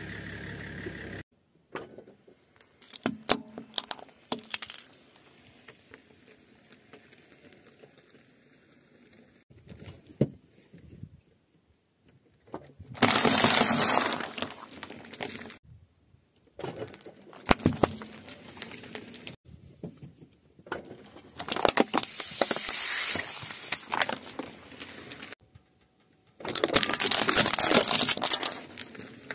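A car engine idling, cut off about a second in. Then a car tyre rolls over a row of objects and crushes them one after another: light crackling from styrofoam blocks, then several loud crunching bursts, among them a plastic bottle full of eggs cracking and bursting open.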